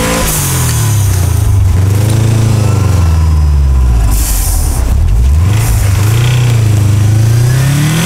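Subaru Forester's turbocharged EJ20K flat-four revving up and down repeatedly as the car churns through deep snow with its wheels spinning. The pitch rises and falls several times and climbs sharply near the end. By the owner's account the engine is already knocking at this stage of the run, from a failing connecting-rod bearing.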